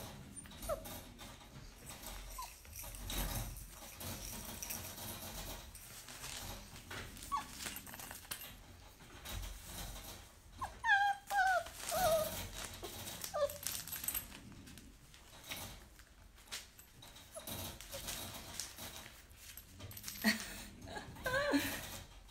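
Puppy whimpering: a few short, high cries that bend in pitch, a cluster about eleven seconds in and more near the end, with soft knocks and rustles between.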